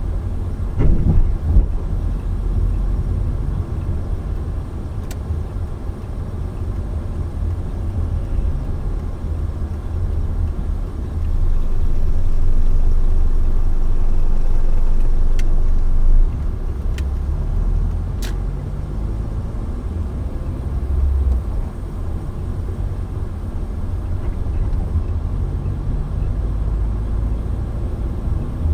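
Moving car's road and engine noise, a steady low rumble. It grows louder for several seconds in the middle, then drops back suddenly.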